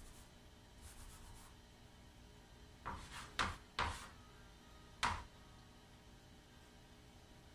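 Chalk writing on a wall-mounted chalkboard: a few faint scratchy strokes near the start, then four short, sharp, louder chalk strokes and taps about three to five seconds in.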